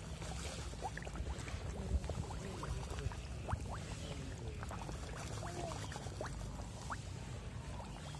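Koi crowding and gulping at the surface of a pond, making a steady scatter of small watery plops and slurps.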